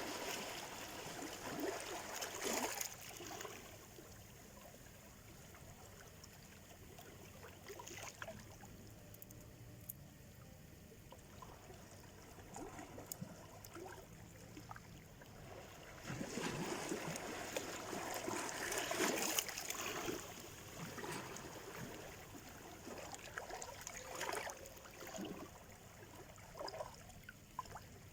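Small Black Sea waves washing onto the shore. Each wave swells into a rush of surf and then trickles back; the surges are loudest near the start and again about two-thirds of the way through, with quieter washes between.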